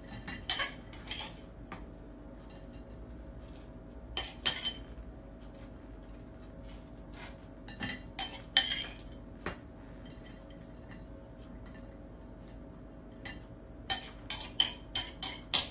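A metal utensil clinking and scraping against a ceramic plate and bowl as mashed avocado and salmon are spread onto toast. The clinks come a few at a time, with a quick run of them near the end.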